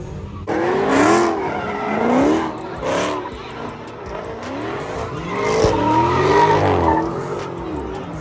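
A car's tires squealing while its engine revs, the pitch swinging up and down in repeated swells, as in a drifting slide.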